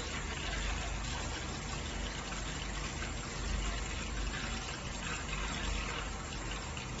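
Water running steadily through a 5500 W electric water heater, a continuous even hiss of flow.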